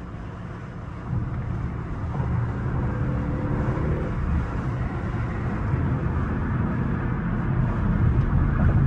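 Mercedes-AMG GLE 63 S twin-turbo V8 and exhaust heard from inside the cabin at freeway speed. It steps up in loudness about a second in and keeps building toward the end.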